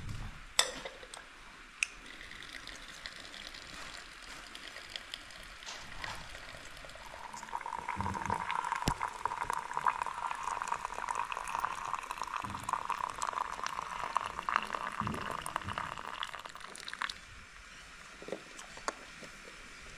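Hot water running from a samovar's tap into a small teapot for about ten seconds, a steady fizzing stream that stops abruptly when the tap is shut. A couple of light clinks of the teapot lid come before it.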